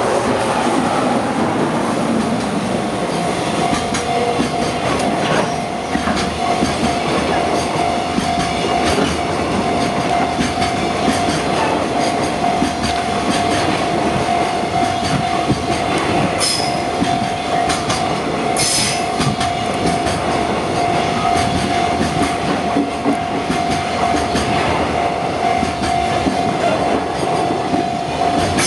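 Container freight train's wagons rolling steadily past a level crossing, wheels clattering over the rail joints with a few sharp clicks. A steady high tone rings throughout.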